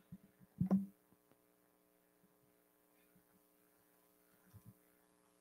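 Steady low electrical hum. A short, sharp sound comes under a second in, and a few faint soft blips follow later.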